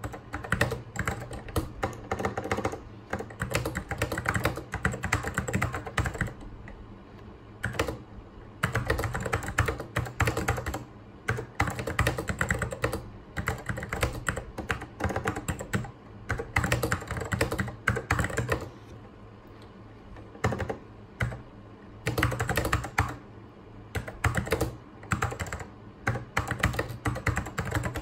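Fast typing on a vintage Apple mechanical keyboard: quick runs of key clicks in bursts of a few seconds, broken by short pauses about six seconds in and again near twenty seconds, over a steady low hum.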